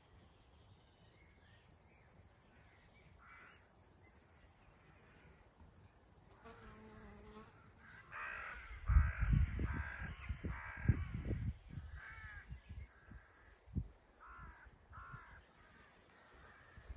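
Crows cawing repeatedly, starting about six seconds in, heaviest around the middle, with a few more calls later. Short low buffeting bursts on the microphone come with the busiest stretch of calls. Before the calls there is only faint field ambience.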